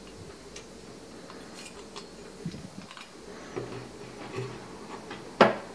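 Binding wire being wrapped around a forged steel knife blade on a wooden bench: light scattered metallic ticks and scrapes of wire on steel, with one sharper knock near the end.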